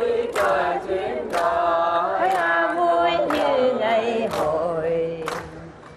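Singing of a Vietnamese song, with long held notes; it fades down near the end.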